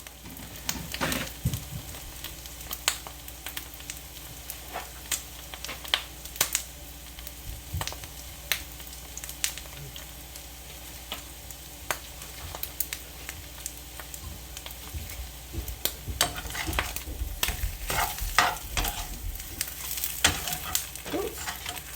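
Eggs frying hard in oil in a pan: a steady sizzle with frequent sharp pops and crackles, which grow busier near the end.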